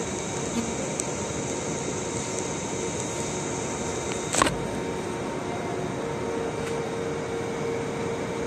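Steady hum of a subway train standing at the platform with its onboard equipment running, a steady tone growing stronger near the end. A single sharp knock about halfway through.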